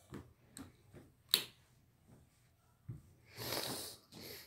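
A toddler moving about on a bare wooden floor: scattered soft knocks and clicks, one sharp click about a second and a half in, then a breathy huff lasting about half a second near the end.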